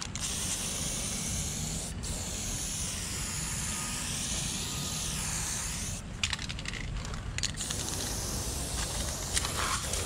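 Aerosol spray-paint can hissing in long continuous passes against a concrete wall, with a break about six seconds in where it goes to a few short bursts before a steady spray resumes.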